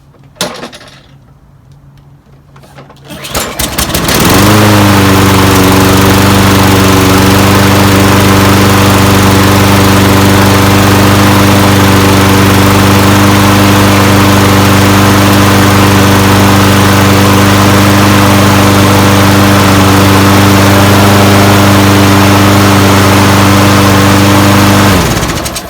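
Toro Recycler 22-inch walk-behind mower's engine pull-started after a shot of carb cleaner, catching on the first pull about four seconds in. It runs at a steady speed, loudly, for about twenty seconds, then is shut off near the end and dies away.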